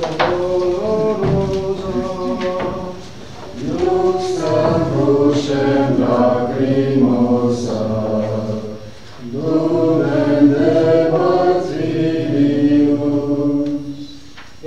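A congregation singing a hymn together in long held phrases, with brief breaths about four and nine seconds in. It is a sung verse between stations of the Way of the Cross.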